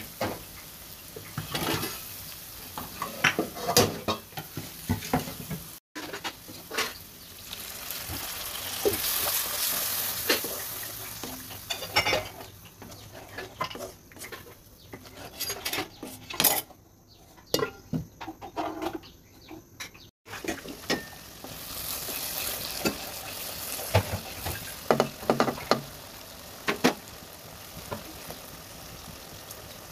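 Onion-tomato masala sizzling in a granite-coated pan while a wooden spatula stirs it, scraping and knocking against the pan again and again.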